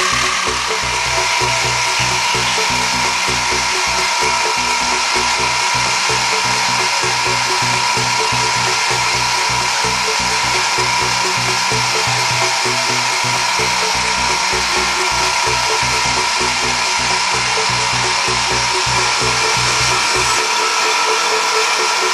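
Sieg X2 mini mill on CNC, milling a metal block under flood coolant: a steady spindle motor whine with the end mill chattering through the cut. The low rhythmic cutting pulses stop shortly before the end while the motor keeps running.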